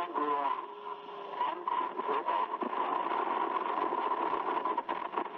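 Cockpit voice recorder audio from the stricken Korean Air Lines Flight 007 Boeing 747: the first officer's garbled radio call reporting rapid decompression, over cockpit noise and a steady high tone.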